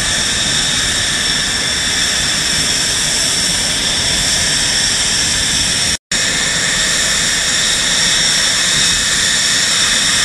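Dassault Mirage F1's SNECMA Atar 9K-50 turbojet running on the ground: a loud, steady rushing noise with several high-pitched whining tones over it. The sound drops out for an instant about six seconds in.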